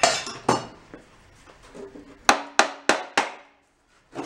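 Metal struck with a hammer: two knocks, then four quick ringing metallic taps about a third of a second apart.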